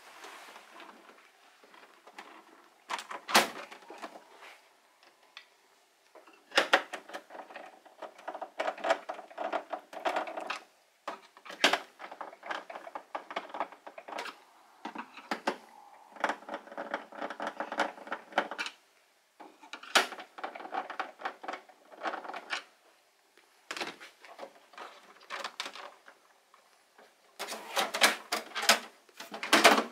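Plastic clicks, knocks and clatter from hands working on an HP PSC 1315 all-in-one printer's casing, with a screwdriver at its back part of the way through. The busiest clatter comes near the end as the front paper tray is handled.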